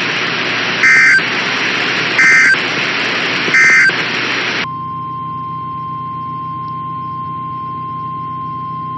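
Emergency Alert System end-of-message: three short screeching SAME digital data bursts over weather-radio static, signalling that the tornado warning is over. Then the static cuts out and a steady single-pitched alert tone sounds.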